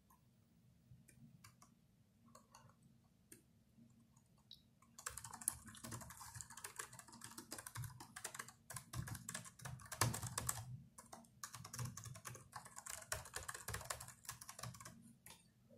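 Typing on a Myria MY8311 laptop's chiclet keyboard: a few scattered key presses at first, then a fast, dense run of keystrokes from about five seconds in until near the end, with a brief pause in the middle.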